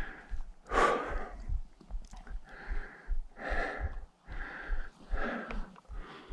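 A hiker breathing hard, in and out about once a second, while climbing a steep mountain trail on foot, with dull footfalls underneath.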